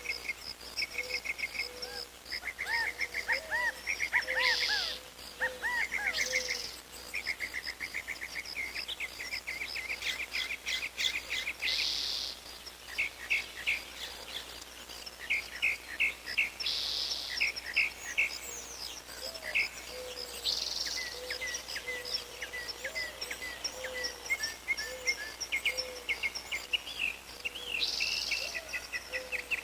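A chorus of several birds chirping and trilling, with rapid runs of high notes throughout and a lower repeated call underneath. Short buzzy bursts break in every few seconds.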